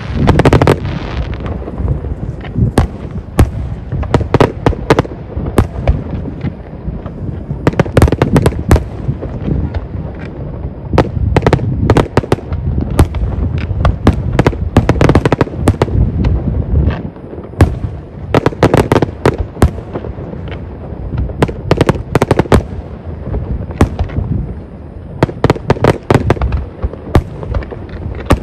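Fireworks going off in quick succession: many sharp bangs and crackles over a low rumble, bunched in dense clusters with short lulls between.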